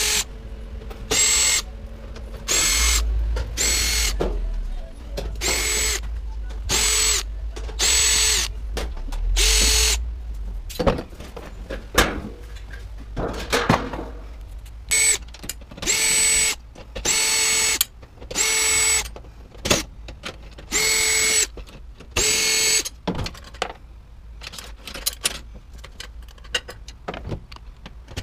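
Cordless drill-driver running in a dozen or more short bursts of motor whine, each under a second, as it backs screws out of a sheet-metal appliance panel. The bursts stop about 23 seconds in, leaving light clicks and knocks of handling.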